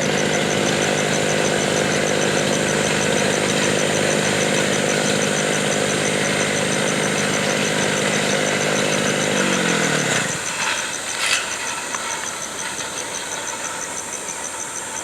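Gas-powered brush cutter engine running steadily. About ten seconds in its pitch falls away as it is shut off and winds down, followed by a couple of light clicks.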